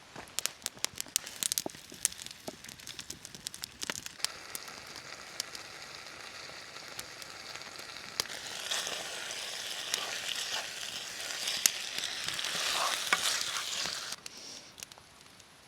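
Pasta and sauce sizzling in a pan over a campfire, with scattered sharp clicks and taps; the sizzle grows louder about eight seconds in and stops abruptly near the end.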